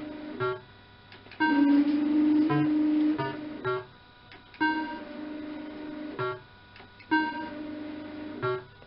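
Super Bar-X fruit machine's electronic game sounds: a steady pitched tone while the reels spin, ending in a short run of notes as they stop. This repeats three times, about every two and a half to three seconds.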